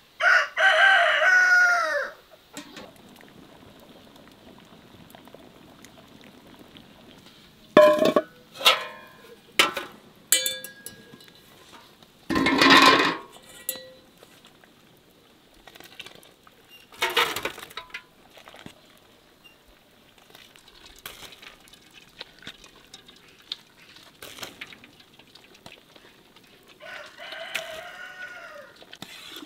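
A rooster crows loudly near the start and again, more faintly, near the end. A few sharp knocks and clatters fall in between.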